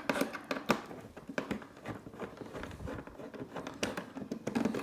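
Hands unwrapping a small bolt from its plastic packaging: rustling and crinkling with scattered sharp clicks.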